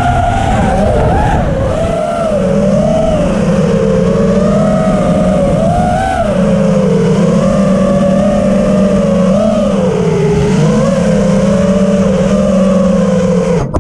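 FPV quadcopter's brushless motors and propellers whining, the pitch swinging up and down constantly with the throttle, over a rush of wind on the onboard camera. The motor sound cuts off suddenly near the end as the quad lands and disarms.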